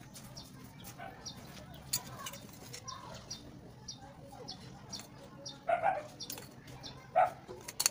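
A small bird chirping over and over, short high chirps about two a second, over a low steady hum. Two louder short sounds break in about six and seven seconds in.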